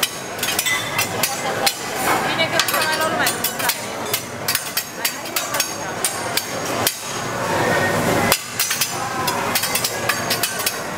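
Metal teppanyaki spatula and knife clanging and tapping against each other and on the steel griddle in a fast, irregular clatter of sharp metal clicks, several a second.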